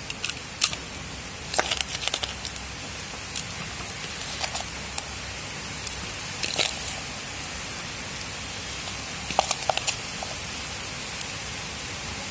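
Potting mix of soil and coir pith tipped from a metal pot into a bowl: scattered light clicks and crackles of the falling, crumbly mix over a steady hiss.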